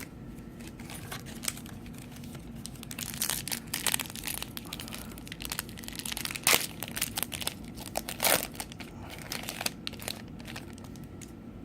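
Trading card pack wrapper crinkling and tearing as it is opened and handled, with irregular crackles; the sharpest come about six and a half and eight seconds in.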